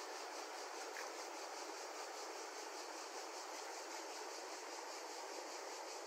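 Fast-flowing river rushing steadily, its current breaking into whitewater over shallows.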